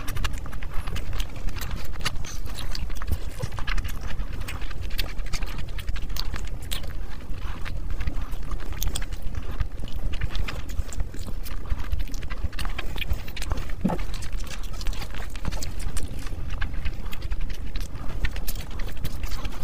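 Close-miked eating sounds of a person chewing mouthfuls of fried rice and chicken by hand: dense, irregular wet smacks and clicks of the lips and mouth, with one short rising sound about two-thirds of the way through.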